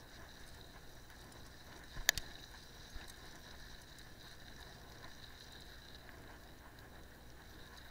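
Cyclocross bike rolling over a dirt path: steady tyre and wind noise, with a single sharp click about two seconds in and a fainter one a second later.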